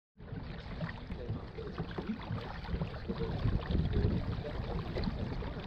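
Water lapping and splashing against a fishing kayak's hull, with wind buffeting the camera's microphone. A steady rushing noise that cuts in suddenly just after the start.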